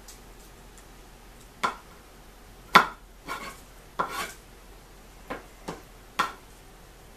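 Kitchen knife cutting the tips off garlic cloves on a wooden cutting board: about eight sharp knocks of the blade on the board at uneven intervals, the loudest a little under three seconds in.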